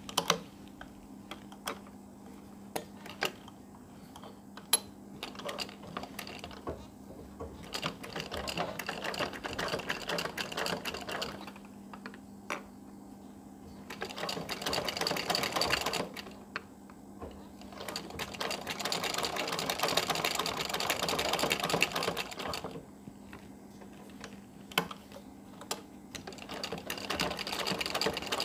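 Domestic sewing machine stitching in several runs of a few seconds each, with pauses between them broken by scattered sharp clicks as the fabric is repositioned. A steady low hum sits underneath throughout.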